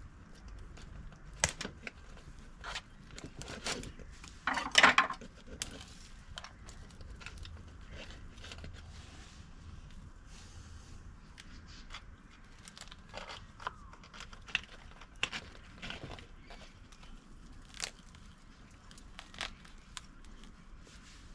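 Hands crumbling and pressing potting mix around an azalea's root ball in a plastic bonsai pot: the soil crackles and rustles, with scattered light snaps and one louder crackly burst about five seconds in.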